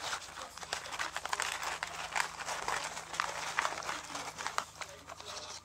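A Dalmatian puppy rolling and scrabbling on carpet makes a dense, irregular run of crackling and scratching clicks. It starts and stops abruptly.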